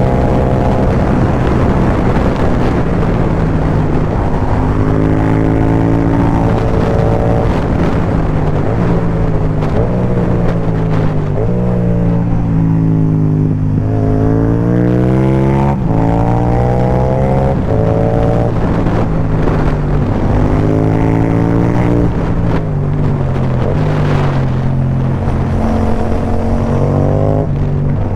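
Yamaha MT-07's parallel-twin engine through an Akrapovic carbon exhaust with no dB killer, under hard acceleration. It revs up through the gears, the pitch climbing with each pull and dropping at each shift, and falls away once about halfway before climbing again.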